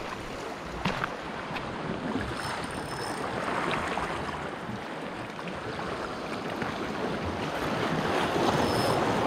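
Sea surf washing over and draining off shoreline rocks: a steady rushing that slowly grows louder through the second half, with a couple of light clicks about a second in.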